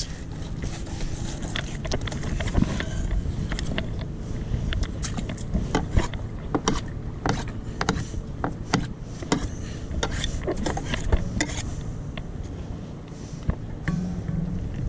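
Scattered sharp clicks and knocks from a fillet knife and hands working on a boat's fish-cleaning board, over a steady low rumble.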